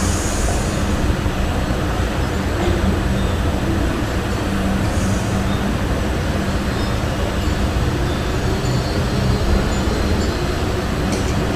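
A cat snoring with a steady low rumble close to the microphone.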